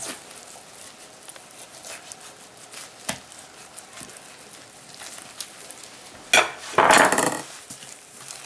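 Knife slicing through raw pork butt on a wooden cutting board, with faint scattered taps of the blade on the board. About six seconds in there is a sharp knock, then a loud noisy rustle lasting about half a second as the meat is handled.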